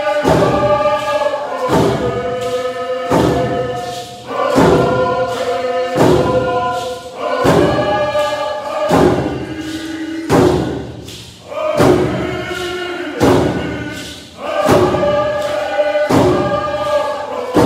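A group singing a Coast Salish canoe family song together, phrase after phrase, over a steady beat of hand drums.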